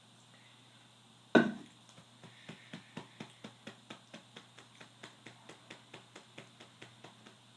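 One sharp, loud knock about a second and a half in, then a steady run of light clicks, about four a second.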